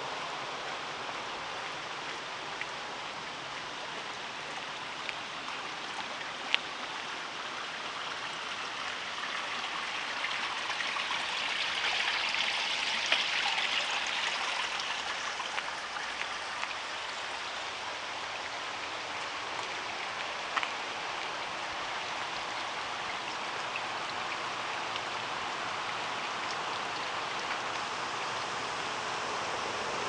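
Steady rush of water from the waterfall, swelling louder and brighter about halfway through, with a few isolated sharp clicks.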